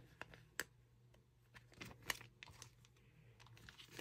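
Faint, scattered crinkles and ticks of clear plastic cellophane bags being handled, the sharpest a little over half a second in and about two seconds in.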